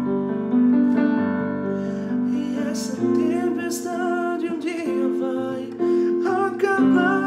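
A man singing a slow Portuguese-language ballad with a held, wavering voice over sustained instrumental chords that change about once a second.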